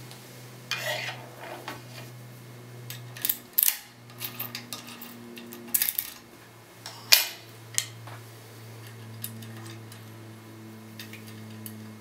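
Steel lockpicking tools clicking and scraping against a TESA T60 euro cylinder held in a vise as the pick and tension wrench are put into the keyway: a short scrape about a second in, then a few sharp metallic clicks, the loudest just past halfway. A steady low hum runs underneath.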